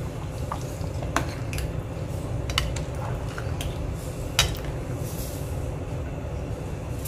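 A perforated metal spoon stirs thick curry gravy in a pot, clinking against the pot about six times, with the loudest clink a little past the middle. Under it runs a steady low rumble from the stove.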